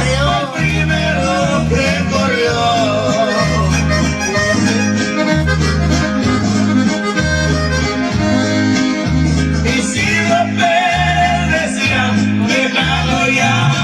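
A corrido played on accordion, guitar and bass: a wavering accordion melody over a steady, even bass beat.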